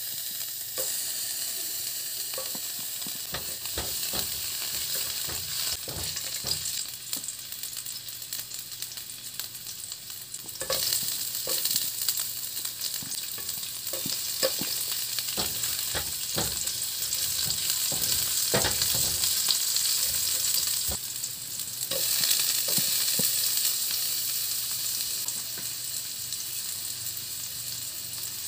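Garlic, onions and ginger sizzling in hot oil in a stainless steel wok, a steady hiss with scattered crackling pops. The sizzle gets louder about ten seconds in and again about twenty-two seconds in.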